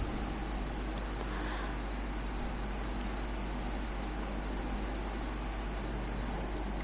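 Eggs frying in hot oil in a pan, a soft steady sizzle left undisturbed. A constant high-pitched electronic whine and a low hum sit under it.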